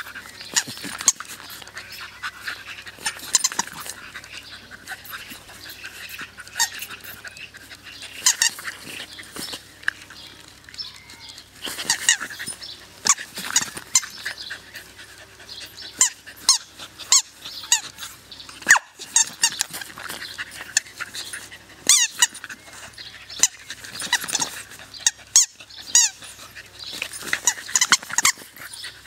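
A dog mouthing and biting a rubber ball toy, giving many short, high squeaks at irregular intervals.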